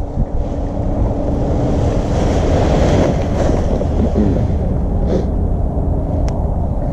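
Wind buffeting the microphone in a heavy, rough rush, with a paramotor engine's steady low drone faintly underneath.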